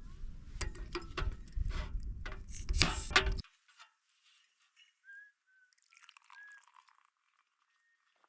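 A run of clinks with short ringing, mixed with liquid dripping and pouring sounds over a low rumble. It cuts off abruptly about three and a half seconds in, leaving a few faint bird chirps.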